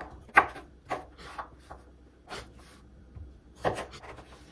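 Kitchen knife cutting through red potatoes on a wooden cutting board: several irregular, separate strikes of the blade on the board, the loudest near the start.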